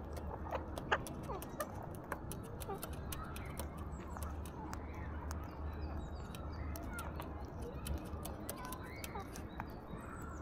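Alexandrine parakeet at a seed feeder: a rapid scatter of small sharp clicks and taps from its beak working the seed, with faint short squawks and chirps over a low steady hum.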